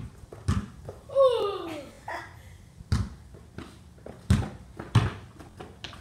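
A basketball bouncing on a concrete driveway as it is dribbled: a few sharp, unevenly spaced bounces. A boy's voice calls out loudly about a second in, falling in pitch.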